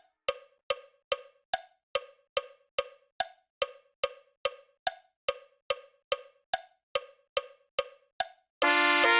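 Metronome click keeping time at about two and a half clicks a second, every fourth click higher-pitched to mark the downbeat, counting through the trumpet's rest. Near the end a B♭ trumpet comes back in with sustained notes.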